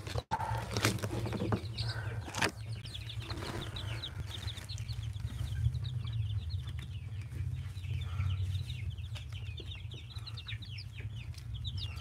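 A brood of Aseel chicks peeping: many short, falling cheeps overlapping, growing thicker from about three seconds in. A few knocks and rustles come in the first couple of seconds, over a steady low rumble.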